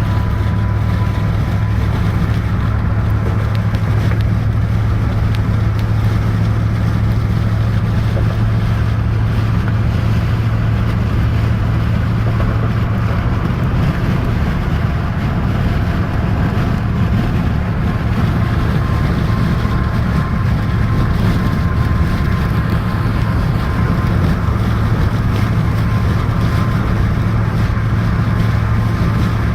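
Steady engine and road noise inside a moving car's cabin, a low, even hum.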